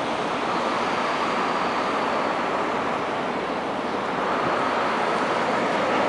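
Steady city street noise: an even, continuous roar with no separate events standing out.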